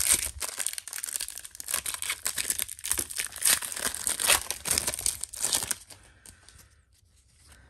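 Gold foil wrapper of a 1994-95 NBA Jam Session trading card pack being torn open by hand, a dense run of crinkling that stops about six seconds in, followed by a few faint ticks as the cards are handled.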